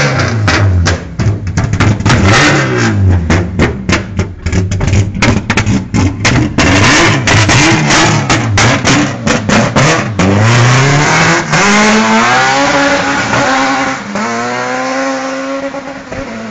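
Honda K20 inline-four with individual throttle bodies in a Civic EG6, revved hard again and again, its pitch swooping up and down. About ten seconds in it accelerates away, the pitch climbing in steps through several upshifts as it fades into the distance.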